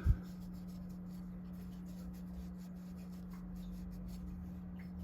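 Faint rubbing and light scratching of a cloth wiping a small knife part clean with cleaning solution, over a steady low hum.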